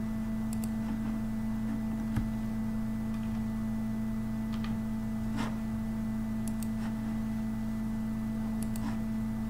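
Steady electrical hum made of a few fixed tones, with a handful of faint keyboard and mouse clicks scattered through it.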